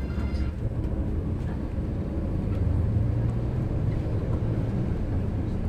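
Steady low engine and road rumble heard from inside a moving city bus, the engine's hum growing louder for a second or so about halfway through.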